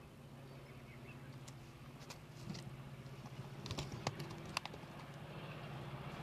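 Faint background with a steady low hum and a scattered run of small sharp clicks and ticks from about one and a half to four and a half seconds in.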